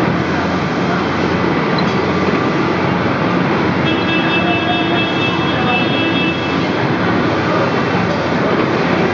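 Steady running noise of conveyor-belt machinery on a food-packaging line, with a thin high tone joining in about four seconds in for about three seconds.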